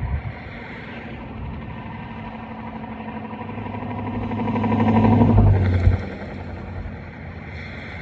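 A motor vehicle passing close by on the road: its engine and tyre noise build to a peak about five seconds in, then drop away quickly.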